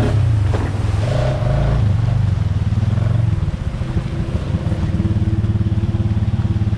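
Honda Foreman ATV's single-cylinder four-stroke engine running, changing speed in the first few seconds, then dropping back about three and a half seconds in and settling to a steady, even idle.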